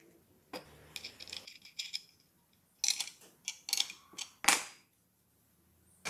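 Small metal clicks and taps of a wrench working a nut and washer on a bolt through a wooden bar and plywood strip, with the wooden pieces knocking as they are handled. A denser run of clicks comes about three seconds in, and one sharper knock about four and a half seconds in.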